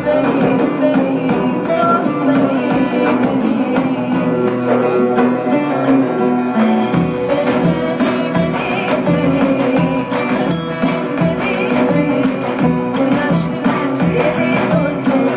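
Live Sufi-influenced electronic world music: a woman singing over a steady hand-percussion beat, with a deep bass part coming in about seven seconds in.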